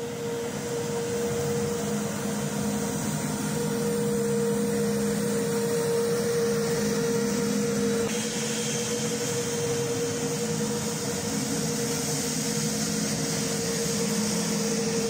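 Sukhoi Superjet 100's PowerJet SaM146 turbofan engines running at low taxi power: a steady whine over a rushing hiss.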